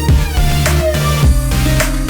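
Background electronic music with a steady beat, heavy bass and synth lines.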